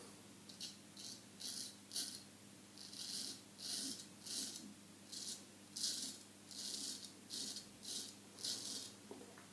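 Straight razor, a Solingen H. Geffgen 6/8, scraping stubble through shave-cream lather in short, quick strokes, about two a second.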